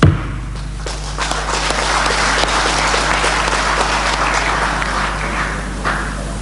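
A single sharp knock, then a hall audience applauding. The applause swells from about a second in and dies away near the end.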